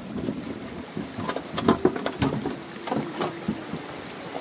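Hand-digging in wet mud and water: a string of irregular tool strikes and splashes.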